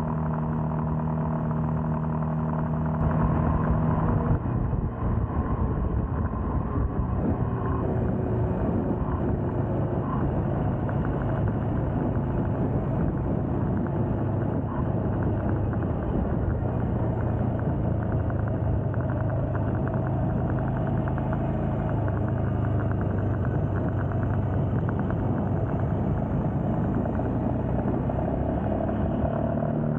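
Royal Enfield Scram 411's 411 cc air-cooled single-cylinder engine running under way, over road and wind noise. About four seconds in, the engine note drops lower and stays there as the bike rides on through a turn.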